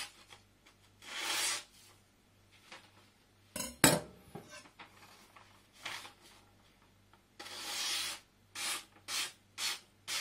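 A freshly sharpened Shirogami #1 carbon-steel gyuto slicing through a sheet of paper in a paper test of the edge, each cut a brief hissing stroke. There is one sharp clack about four seconds in, and a quick run of short cuts, about two a second, in the last couple of seconds.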